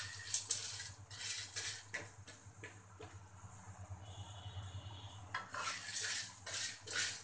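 Spatula stirring and scraping unpopped corn kernels in oil around a karai (wok), in irregular strokes with a lull in the middle before the stirring picks up again.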